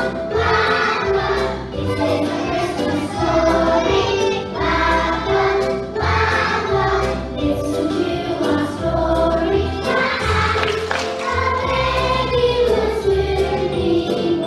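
Group of young children singing a Christmas nativity song along with a backing track that has a steady bass beat.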